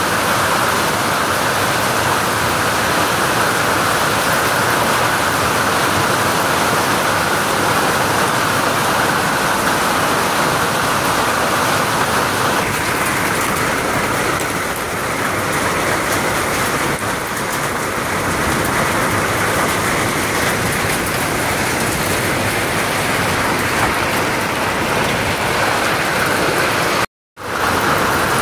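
Hail and heavy rain pelting vehicles and the ground in a loud, dense, steady rush, easing slightly about halfway through, with a brief cut-out near the end.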